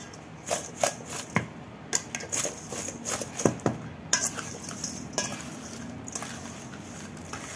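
A spoon clinking and scraping against a stainless steel mixing bowl as zucchini sticks are tossed with panko crumbs. It is a run of irregular knocks that thins out after about five seconds.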